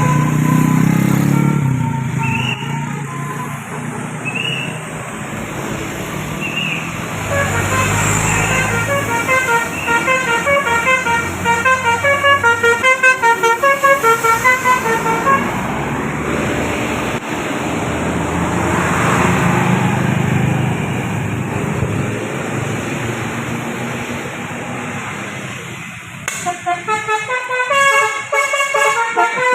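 Tour bus telolet Basuri horn playing a tune of quick, short multi-tone horn notes: one long run in the middle and another starting near the end, over the rumble of bus engines and road traffic.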